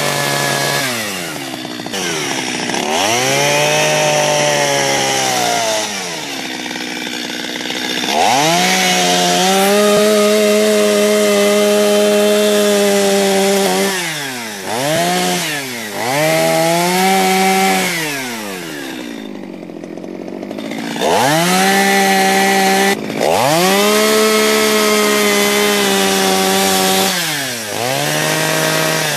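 Two-stroke chainsaw carving wood, its engine held at high revs for a few seconds at a time and repeatedly easing off toward idle before revving up again.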